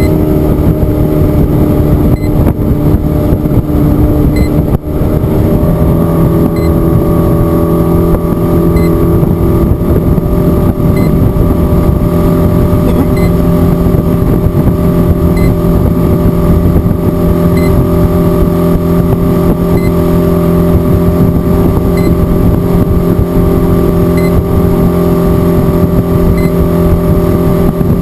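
Motorboat engine running under way at a steady speed, its pitch stepping up about a second in and again about five seconds in, then holding steady.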